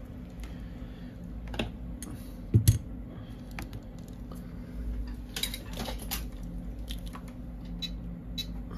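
Small clicks and taps of hands handling an opened iPhone XR: flex-cable connectors being pressed onto the board and the display being moved, with one dull knock about two and a half seconds in and a run of clicks a few seconds later.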